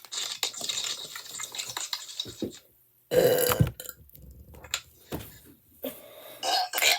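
A person's deliberate loud belch about three seconds in, lasting under a second, with other, shorter sounds following near the end. A stretch of hissy noise comes before it.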